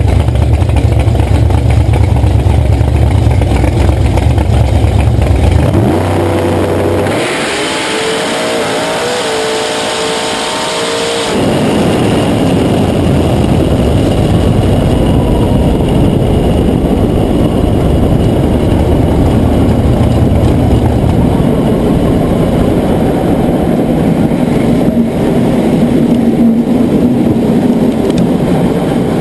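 Drag car's engine running loud and steady for about six seconds, then a full-throttle pass of about four seconds with the engine note climbing as it accelerates, along with rushing wind, which stops abruptly at the finish. On this run the car shook the tyres a little but recovered. After that the car coasts with the engine lower, under wind and tyre noise.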